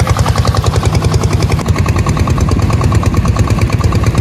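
Small boat's improvised outboard motor, built from a generator engine, running steadily under way with a loud, rapid putt-putt from its exhaust.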